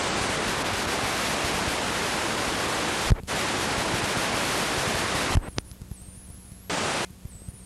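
Steady static hiss from a blank stretch of analog videotape, broken by a short dropout with a click about three seconds in. A little past five seconds it drops away to a low murmur, with one more short burst of hiss near the end.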